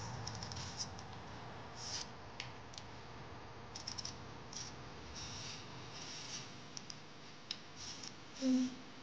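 A potato being peeled by hand: short, irregular scraping strokes of a blade over the skin. Near the end a brief hummed note from a woman's voice.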